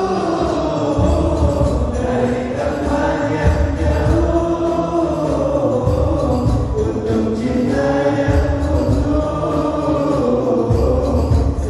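A male voice singing an Arabic devotional qasidah into a microphone, in long, ornamented held notes that bend up and down, over a low accompaniment.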